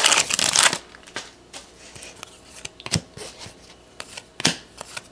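The crimped wrapper of a trading-card pack crinkles and rips open for the first second or so. Then the cards are slid one behind another by hand, a string of soft, irregular flicks.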